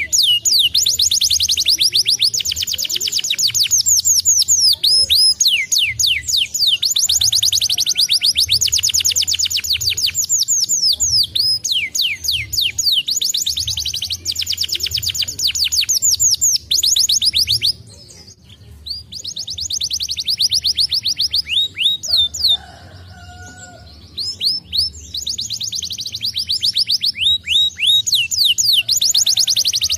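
Domestic canary singing: long rolling trills of fast, repeated downward-sliding notes, with two brief breaks in the song past the middle.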